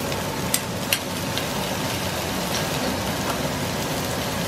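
Vegetables sizzling steadily in hot oil in a wok as shredded cabbage goes in on top of frying onion and carrot. Two sharp clicks about half a second and a second in.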